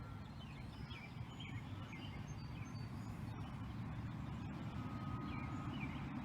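Outdoor ambience: a steady low rumble of road traffic, growing slightly louder, with small birds chirping on and off throughout.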